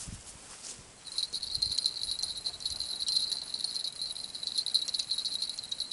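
A high, steady chirring buzz made of very fast ticks, typical of an insect stridulating in summer grass. It starts abruptly about a second in. A few soft low thuds come in the first second.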